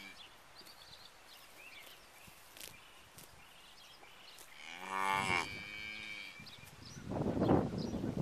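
British White cattle mooing: one drawn-out moo about five seconds in, lasting about a second, its pitch dipping at the start and then holding steady. Near the end comes a louder burst of rustling, crackling noise.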